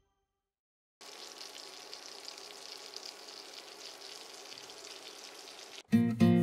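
Masala-coated fish pieces sizzling steadily as they shallow-fry in hot oil in a pan, starting about a second in. Acoustic guitar music comes in loudly near the end.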